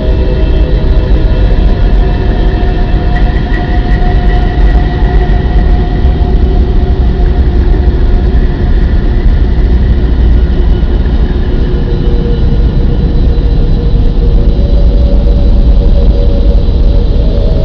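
A loud, steady, low rumbling drone with faint sustained tones above it that slowly shift in pitch, presented as a scientific recording of Earth's hum.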